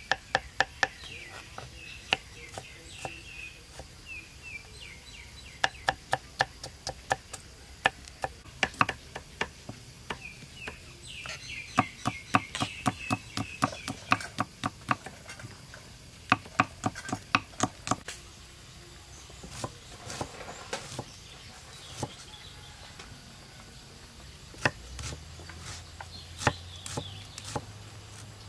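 Kitchen knife chopping on a thick wooden chopping board: runs of quick, sharp strokes, about four to five a second, with pauses between runs, as garlic and then red onion are cut. Faint high chirping goes on behind it.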